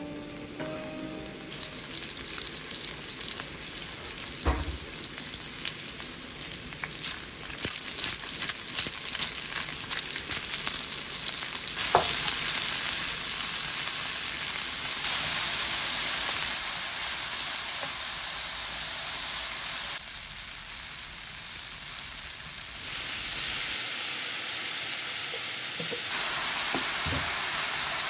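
Sliced onions sizzling in hot oil in a nonstick frying pan, stirred with a wooden spatula that scrapes and taps against the pan. The sizzle grows louder about halfway through, just after a sharp knock.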